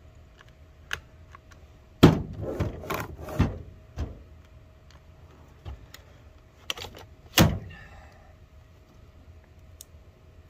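Clicks and knocks from handling a stalled Greenworks GS110 battery top-handle chainsaw. There is a quick cluster of knocks about two seconds in and a single sharp knock about seven seconds in, with no motor running.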